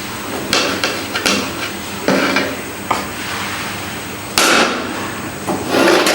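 A metal serving spoon knocking and scraping against a cooking pot and a serving dish while biryani is dished out. There are a series of separate clinks and scrapes, with the loudest about four and a half seconds in.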